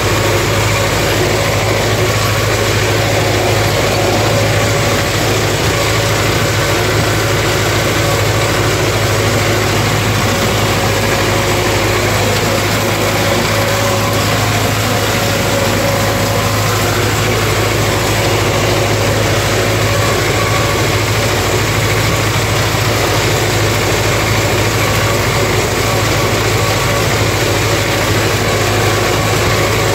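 MTZ-50 tractor's four-cylinder diesel engine running at a steady speed, heard from inside the cab while mowing with a ZTR-165 rotary drum mower. The sound stays even throughout, with no change in engine speed.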